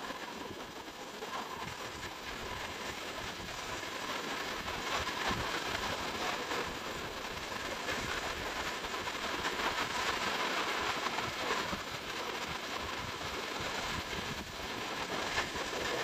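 Beach ambience: a steady wash of small waves breaking on the sand, with wind.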